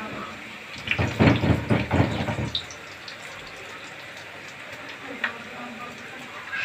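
Kofta pieces frying in hot oil, a steady sizzle, with a louder burst of crackling and spitting from about a second in that lasts a second and a half.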